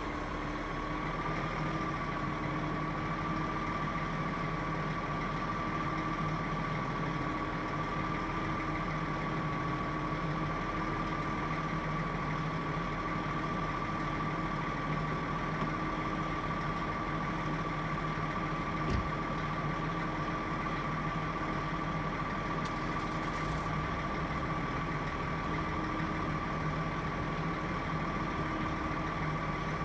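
Heavy diesel engine idling steadily, with a constant high-pitched whine above it. A single sharp click about two-thirds of the way through.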